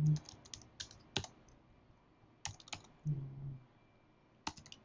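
Computer keyboard being typed on in short bursts of keystrokes, a few quick clicks at a time, with a brief low hum twice between them.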